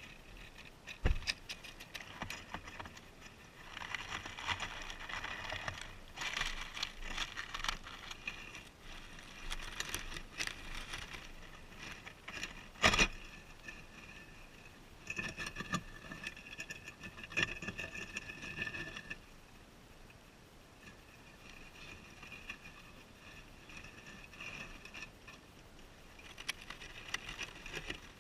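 Guinea pigs rustling through wood-shaving bedding and munching lettuce: patches of crisp crackling and scuffling, with two sharp knocks, about a second in and, louder, about thirteen seconds in.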